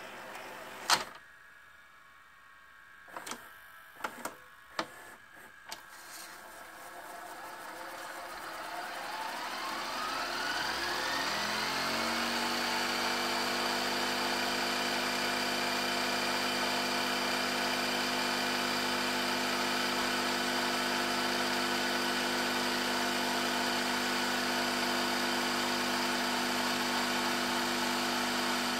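Philips VR550 VHS deck (Funai-built mechanism) switching mode with a sharp click and a few smaller mechanical clicks, then its reel motor spinning up with a rising whine and settling into a steady whir as it fast-winds a long E300 tape at high speed.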